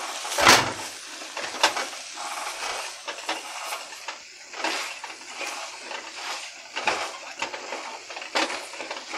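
Metal potato masher mashing boiled potatoes into a spiced pea filling in a black pan: irregular knocks and scrapes of the masher against the pan, the loudest about half a second in, with soft squishing and a sizzle underneath.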